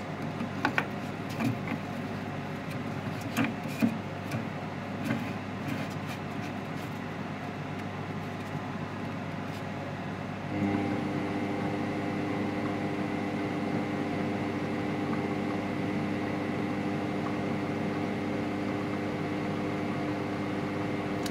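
Light metal clicks and knocks as a pump impeller is fitted onto a repaired motor shaft in a metal lathe. About halfway through, the lathe starts and runs steadily, spinning the spa pump rotor and impeller to check them for wobble.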